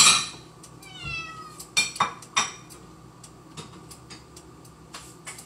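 A house cat meows once, the call falling in pitch, about a second in, with a clatter at the start and a few sharp clinks of dishes about two seconds in as a plate is got out.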